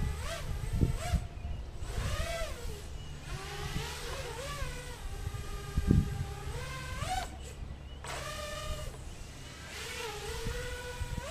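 Racing quadcopter's brushless motors and propellers whining as it hovers on a 3S lipo, the pitch rising and falling as the throttle is worked. There is a single thump about six seconds in.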